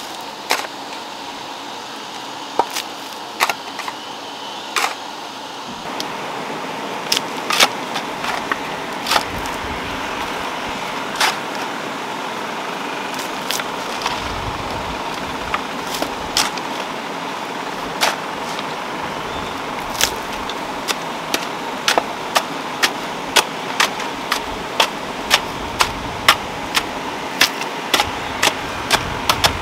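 Garden hoes chopping and scraping into loose, stony soil, each stroke a short sharp knock; the strokes are scattered at first and come steadily, one or two a second, in the second half, over a constant background hiss.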